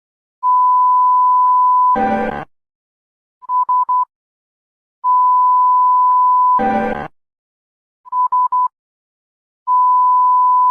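Emergency alert alarm tones in a repeating cycle: a long, steady, high beep, then a short buzzing blast, then three quick beeps at the same pitch, with gaps of silence between. The cycle plays about twice.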